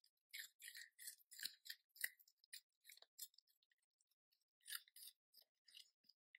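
Dachshund puppy biting and chewing a raw carrot: faint, quick, crisp crunches, a run of them over the first three seconds, a short pause, then a few more near the end.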